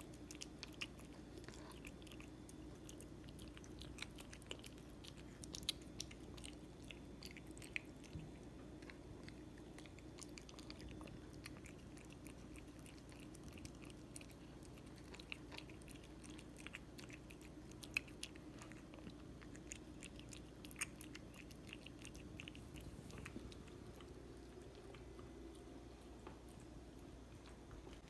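A cat chewing food, with many small, faint clicking bites and crunches scattered irregularly over a faint steady hum.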